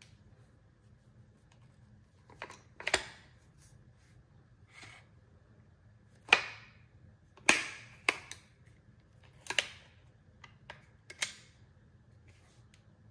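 Sharp metallic clicks and clacks, about ten spread over several seconds with short rings after the loudest, from a Sulun SR-410 .410 revolver shotgun being handled: its cylinder swung out and closed again.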